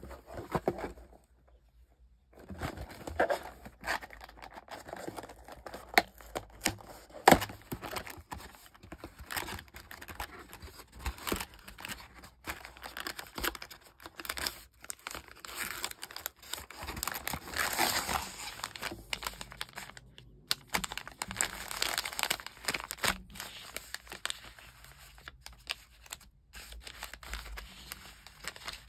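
Handling of a cardboard cocoa box: its glued cardboard flaps are torn open, then the paper-foil cocoa envelopes crinkle and rustle as they are pulled out and laid down. Irregular rustling is broken by many sharp cardboard clicks and knocks.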